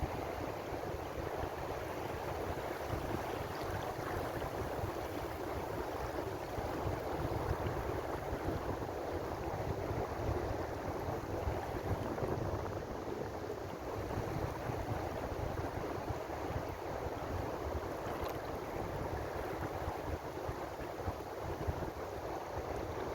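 Ocean waves washing in a steady, unbroken rush of surf, with a low flickering rumble underneath.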